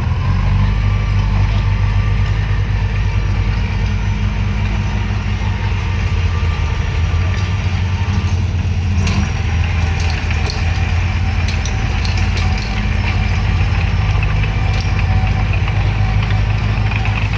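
Bulldozer's diesel engine running steadily with a heavy low drone. About halfway through, a run of short sharp ticks and clanks joins it.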